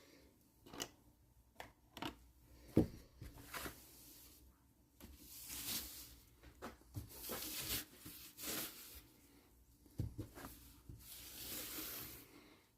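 Cloth wiping across a workbench top in repeated rubbing strokes, with scattered light knocks and clicks of small objects being moved on the bench.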